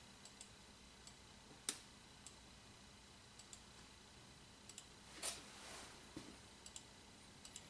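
Near silence: room tone with a few faint, scattered clicks, the sharpest about a second and a half in.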